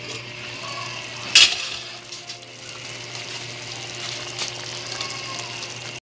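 Chicken and chayote sizzling steadily in a pot, with one sharp clink about a second and a half in as the pot lid is handled.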